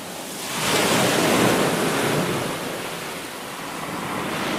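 Small waves washing up onto a sandy beach and foaming around the shallows. The wash swells about half a second in, eases off, then builds again near the end.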